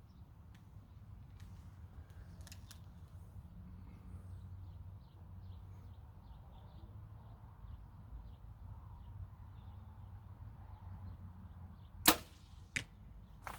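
A compound bow is shot near the end: one loud sharp snap of the release, and about 0.7 s later a fainter smack as the field-point arrow hits the distant target.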